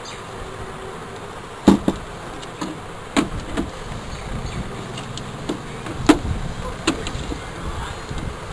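Scattered sharp clicks and knocks as a small sealed battery is handled in a digital weighing scale's plastic battery compartment, over a steady buzzing hum.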